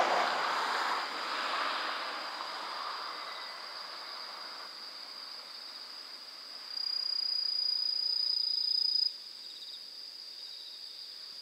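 A train's running noise fades away over the first few seconds, leaving a steady high insect trill. About seven seconds in the trill grows much louder for about two seconds, then drops back.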